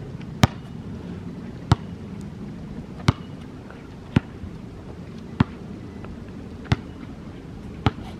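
A basketball being dribbled on a hard outdoor court: seven sharp bounces, a little over a second apart, over a steady low background noise.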